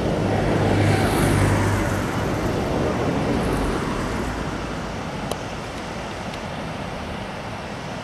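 Rushing whitewater rapids, a steady noisy roar. In the first two seconds it swells louder with a low hum under it, then eases off slowly.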